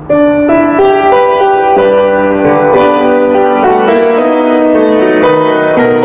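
Grand piano played with both hands: a short melodic phrase with new notes struck about every half second, ringing into one another, given as an example of correct phrasing.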